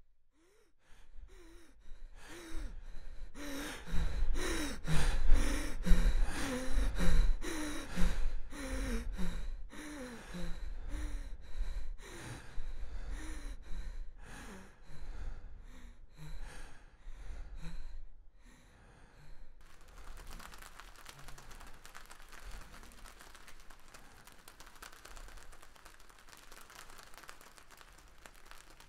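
A person's voice making quick, rhythmic gasps and sighing breaths, about one a second or a little faster, loudest in the first third and fading away. About two-thirds of the way in they give way to a steady soft hiss.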